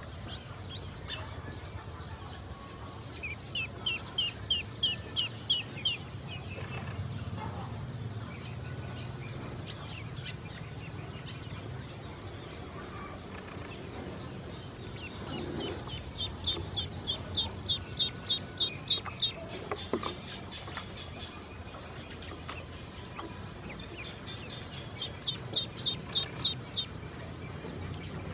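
Ducklings peeping: three bouts of quick, high-pitched peeps, about four a second, each bout lasting a few seconds.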